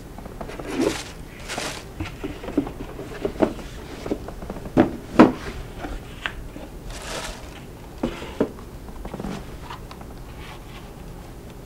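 Shoes being handled while being tried on: rustling, scraping and scattered knocks as shoes come off and go on, with the sharpest knocks about five seconds in.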